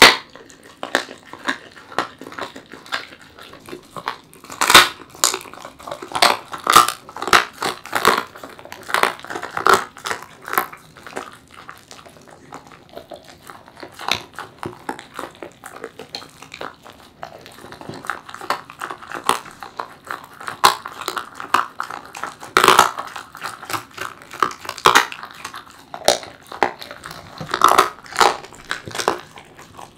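Welsh corgi chewing and crunching a piece of raw chicken: irregular wet crunches and snaps. They thin out for a few seconds in the middle, then come thick again.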